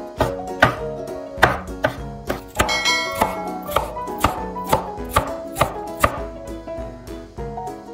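Kitchen knife dicing a green bell pepper on a wooden cutting board, sharp cuts about twice a second, over soft background music.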